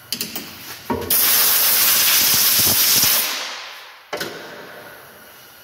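A blast of compressed air, a loud hiss lasting about two seconds that then trails off, most likely blowing chips and coolant off the freshly thread-milled part. A few clicks of handling come before it and a sharp knock just after.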